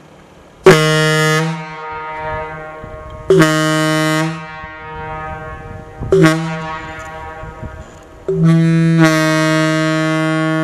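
Leslie A-200 locomotive air horn blown from a surge tank: three short blasts about a second or less each, then a long blast starting near the end. Each blast is followed by a strong echo.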